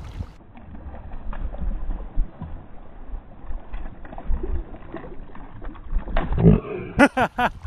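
Low wind rumble on the microphone with a few faint knocks, and a brief voice near the end.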